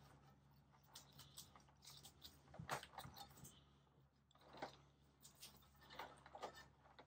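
Near silence with faint, scattered scrapes and clicks, a second or so apart, of hands working gritty bonsai soil and the pot during repotting.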